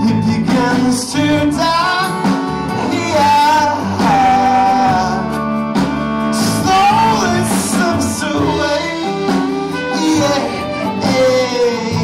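A live acoustic string band playing a song: strummed acoustic guitar, fiddle, upright bass and drums, with a male voice singing the melody.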